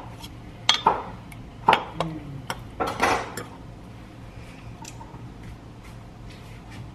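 Metal spoon clinking against a glass measuring cup and honey jar: several sharp clinks in the first three and a half seconds, then only faint taps.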